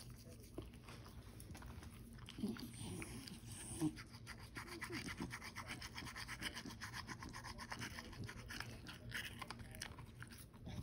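Toothbrush bristles scrubbing a schnauzer's teeth in a quick run of faint, short back-and-forth strokes, with a couple of brief louder low sounds in the first few seconds.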